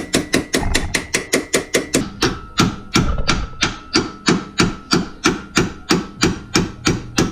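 Mallet striking a press-fit suspension bolt through a nut threaded onto its end, about four sharp metal blows a second, driving the bolt out of its bushing.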